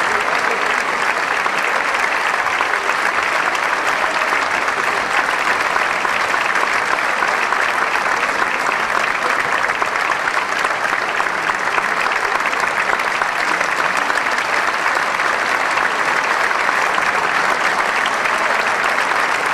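Theatre audience applauding steadily without a break: a curtain-call ovation for the opera cast.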